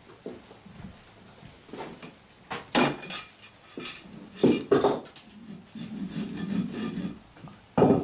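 A horse's hooves knocking and clattering on the shop floor a few times while a farrier takes up a hoof, the loudest knocks about three and four and a half seconds in, then a rubbing scrape from work on the held hoof.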